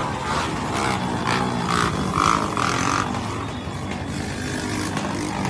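Motorcycle engines running at low speed amid the general noise of a crowd on foot, with a brief loud sound about two seconds in.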